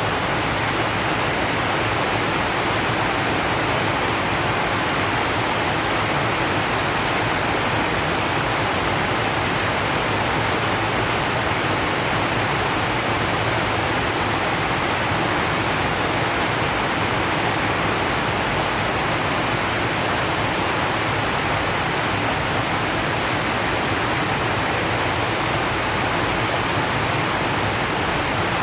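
Heavy rain falling on a corrugated zinc roof, a dense, even rush with no single drops standing out and no change in strength.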